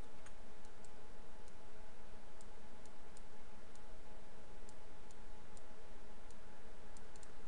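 Faint computer mouse clicks, about a dozen at irregular intervals, over a steady low hum and hiss.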